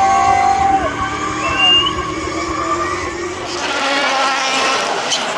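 Competition car engine running at steady high revs with a held tyre squeal that drops away about a second in. A broad tyre hiss and squeal builds over the last couple of seconds.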